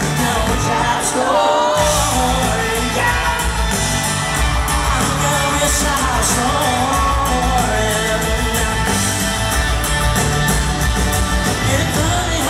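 Live band playing a country-pop song: a male lead singer over acoustic guitar, drums and bass, heard from the audience. The bass and drums drop out briefly about a second and a half in, then come back in.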